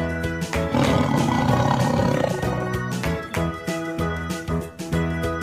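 A tiger growling and roaring over background music with held notes and a steady beat; the roaring is loudest about one to three seconds in.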